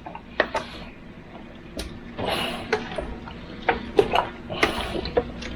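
Raw chicken pieces being mixed by hand in a thick mustard sauce in a bucket: irregular wet squelches and smacks as the pieces are turned and coated.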